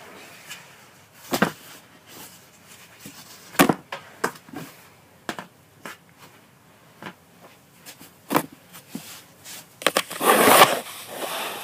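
Handling noises: scattered clicks and knocks, with a louder rustling, crackling stretch about ten seconds in.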